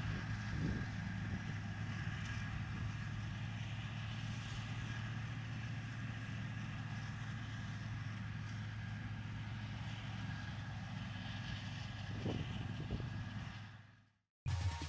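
Claas Jaguar 960 self-propelled forage harvester chopping sorghum under load: a steady engine drone with a constant high whine above it. It fades out near the end.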